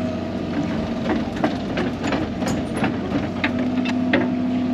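Excavator diesel engine running steadily, with a run of sharp, irregular knocks and clanks through the middle.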